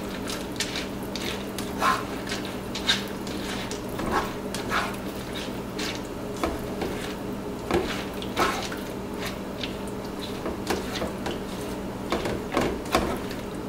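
Black plastic slotted spatula stirring ground beef and pasta through milk and water in a non-stick frying pan: irregular scrapes and taps against the pan as the liquid is moved around.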